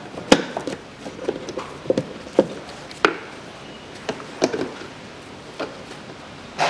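Irregular sharp plastic clicks and knocks as push-in clips are pried out of the plastic wheel-arch liner, one or two a second. The loudest comes about a third of a second in and another about three seconds in.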